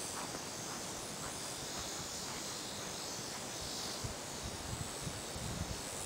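Steady high insect chirring, with a few faint hoofbeats on sand dying away in the first couple of seconds.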